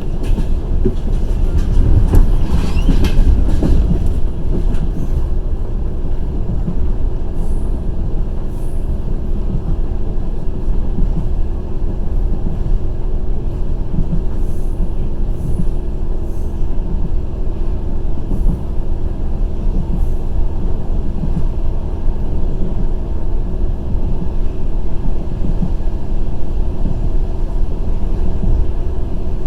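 Passenger train carriage rolling along the track: a steady rumble of wheels on rails. It grows louder for a couple of seconds near the start, with a few light clicks later on.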